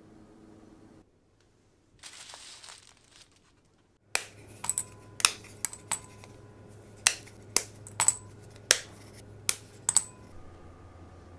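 Pieces of broken dark chocolate dropped one at a time into a glass bowl, each landing with a sharp clink that rings briefly: about a dozen, starting about four seconds in and stopping near ten seconds. A brief rustle comes about two seconds in.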